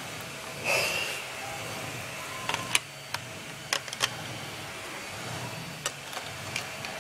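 Scattered sharp clicks and taps over a steady low hiss, with one brief higher-pitched sound about a second in.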